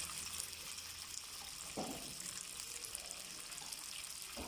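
Chicken frying in soy sauce in a pan, a soft, steady sizzle.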